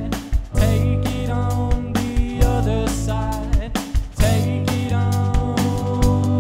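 Live rock band playing: drum kit keeping a steady beat under bass, electric guitar and keyboard.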